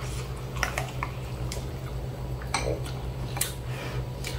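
Metal chopsticks and a ceramic spoon clinking and scraping against a ceramic noodle bowl in a handful of separate light clicks while instant noodles in soup are stirred and lifted, over a steady low hum.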